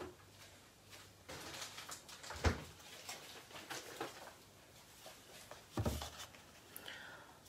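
Kitchen handling noises: light clatter and rustling, with two louder knocks about two and a half and six seconds in, as a milk carton is fetched and handled.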